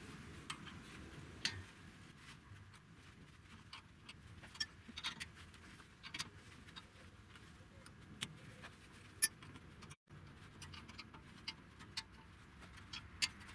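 Scattered light metallic clicks and taps from hand tools on the rear brake caliper's bolts as they are tightened back up, at irregular intervals.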